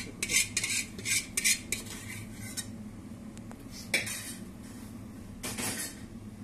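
A metal spoon clinks and scrapes against a steel serving dish in a quick run of sharp clinks over the first two and a half seconds. A single knock follows about four seconds in, then a short scrape near the end.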